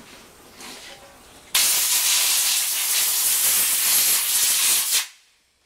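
Compressed-air blow gun blowing filing debris out of a posi differential carrier: a loud, steady hiss of air that starts suddenly about a second and a half in and dies away just before the end.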